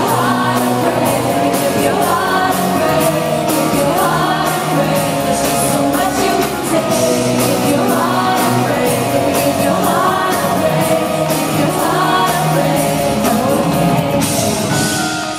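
Live pop band playing with a woman singing lead over it: a full, loud mix of instruments and voice with held, bending sung notes.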